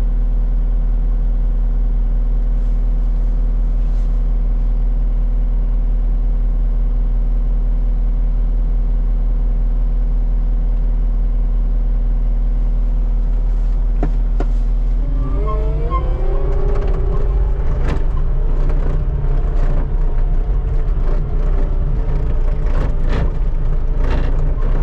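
Skid steer engine running steadily; about fifteen seconds in it revs up, rising in pitch, with repeated knocks and rattles as the machine works.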